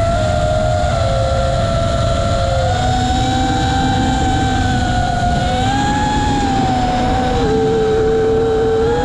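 FPV racing quadcopter's electric motors whining as it flies, several tones drifting up and down independently as the throttle changes. One tone dips lower about seven seconds in and rises again near the end, over a steady rush of wind.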